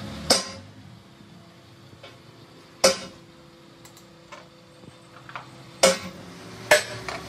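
Sharp metal clinks and knocks as a self-starter's metal end housing and a small bush are handled and set down on a steel lathe carriage: four loud strikes, each ringing briefly, with lighter taps between.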